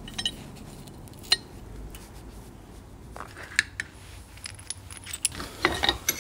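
Light metallic clinks and taps as steel motorcycle rear-shock parts are handled and worked in a bench vise. A sharp clink about a second in is the loudest, and a quicker run of clinks comes near the end.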